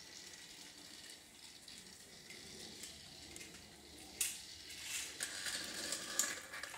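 Battery-powered Thomas Trackmaster toy train and its plastic track set running faintly, a light mechanical whirring and rattling, with a sharp click about four seconds in.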